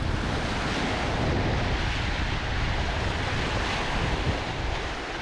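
Wind buffeting the microphone over the steady rush of waves and white water along the hull of a sailboat running through wavy seas.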